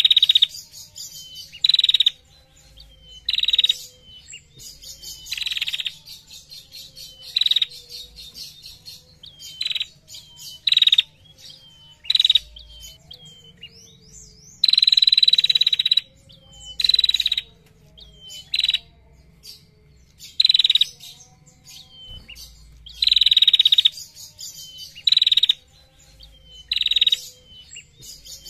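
Female prenjak, a small warbler, singing its rapid trilling 'ngetir' song: loud, high, buzzy bursts repeated every second or two, the longest lasting about a second and a half near the middle.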